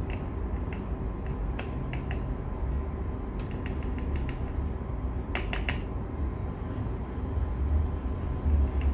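Scattered sharp clicks and taps from bottles and containers being handled, with a quick run of about four clicks about five and a half seconds in, over a steady low hum.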